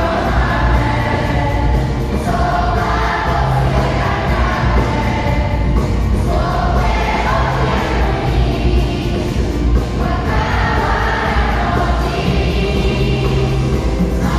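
A huge crowd singing a pop song together over a live band's accompaniment, with a steady bass line under the mass of voices.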